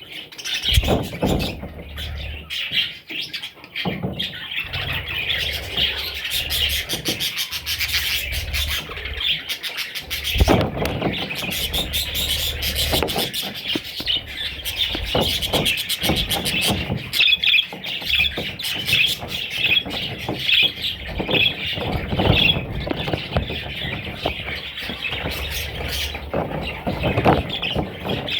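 A flock of budgerigars chirping and chattering continuously, many birds calling at once.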